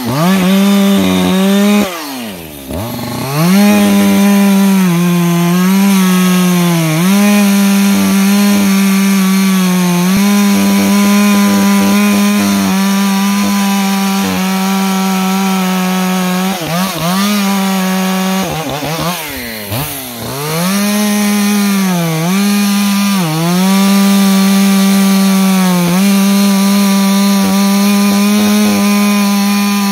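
Echo CS-620P two-stroke chainsaw cutting firewood at high revs. The engine speed sags slightly at times in the cut, and the saw drops back sharply and revs up again about two seconds in and twice more a little past the middle.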